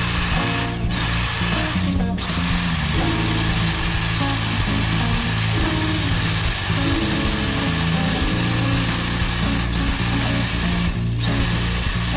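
A small electric power tool running with a steady high whine, stopping briefly a few times, over background music.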